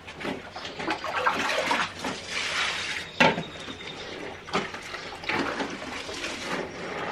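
Water running and splashing, with a few knocks, the loudest a sharp clack about three seconds in.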